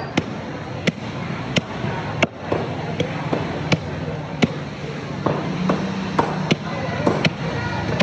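Cleaver chopping a skin-burnt pork leg into pieces on a chopping block, sharp strikes about every 0.7 seconds with lighter knocks between them in the second half.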